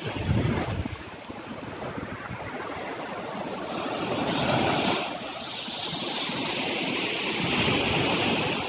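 Sea surf washing onto a beach, with wind buffeting the microphone. The surf swells louder about four seconds in and again near the end.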